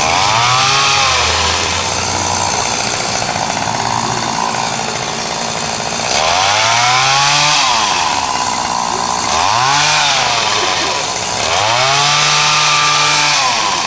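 Petrol chainsaw cutting into a hedge. It is revved up to full speed about four times and drops back between cuts.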